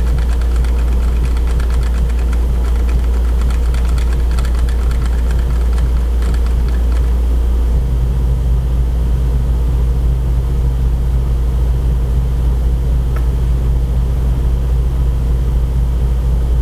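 A steady, loud low hum. A second, slightly higher tone above it shifts pitch about eight seconds in.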